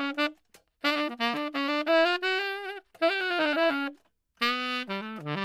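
Solo saxophone playing an unaccompanied, jazzy melody with bending pitch, in three phrases broken by short pauses.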